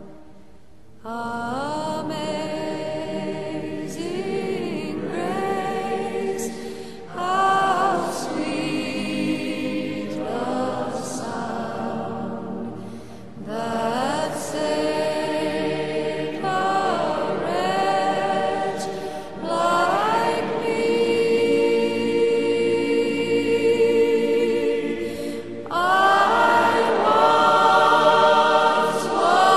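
A choir singing a slow piece in long held phrases, coming in about a second in after a short pause.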